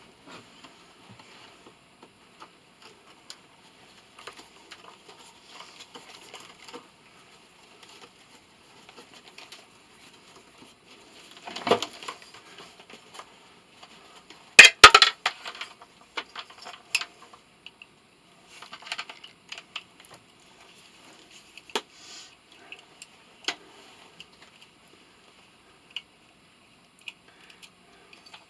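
Scattered metallic clinks and knocks of hand tools and metal parts being handled while a motor is dismantled, with the loudest clattering about fifteen seconds in.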